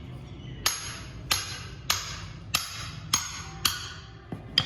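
Hammer striking metal seven times at an even pace, about one blow every 0.6 s, each blow ringing briefly, as if a part of the ball joint is being driven or knocked apart.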